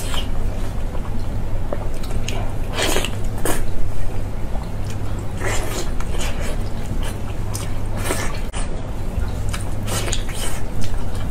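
Close-up eating sounds: sticky, sauce-covered braised meat on the bone torn apart by gloved hands and bitten and chewed, with irregular smacks and clicks every second or two over a steady low hum.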